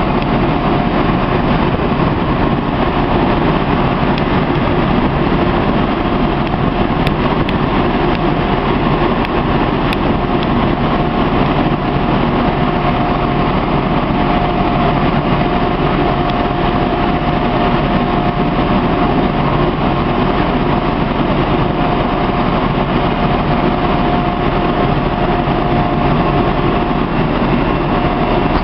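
A fire engine's engine running steadily at raised speed while it pumps water to the hose lines, with a constant whine above the drone.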